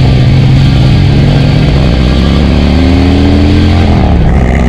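Harley-Davidson Road Glide's Milwaukee-Eight V-twin engine running under load at highway speed. Its pitch climbs steadily, then falls away about four seconds in. Wind rush sounds on the microphone throughout.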